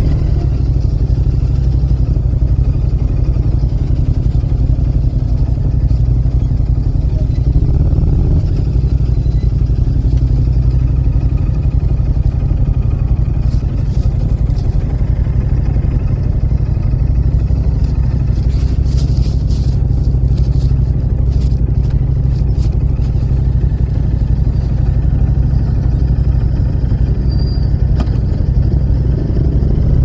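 Yamaha MT-07's parallel-twin engine running steadily at low revs through a loud aftermarket muffler with a wide outlet: a deep rumble. A few light clicks come through around the middle.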